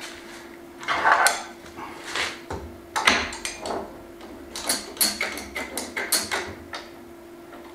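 Metal clamps clinking and clicking as they are fitted onto a wooden board and tightened lightly by hand. The knocks come in short clusters at first and grow into a quicker run about halfway through, over a faint steady hum.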